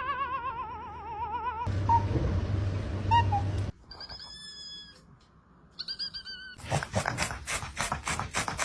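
Cats calling in a string of short clips: a long warbling yowl that wavers up and down, then brief high squeaky calls, and from about seven seconds a fast stuttering run of sounds.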